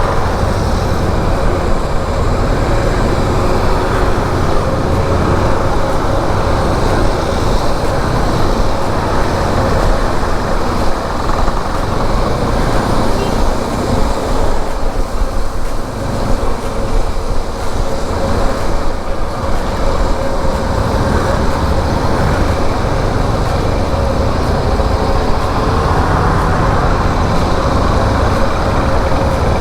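Motorcycle running at a steady road speed, with wind noise on the microphone and a constant low rumble throughout.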